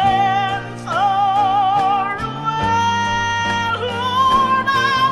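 Country gospel song: a singer holds a string of long, drawn-out notes with wide vibrato over a steady band accompaniment.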